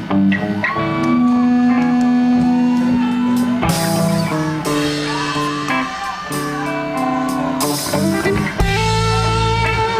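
Live rock band playing, led by electric guitar with long held and bent notes over bass and drums. Two crashes about four seconds apart, and a heavy low end comes in near the end.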